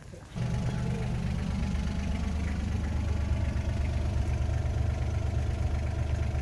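Engine of heavy equipment running steadily with a low, even sound; it cuts in abruptly just after the start.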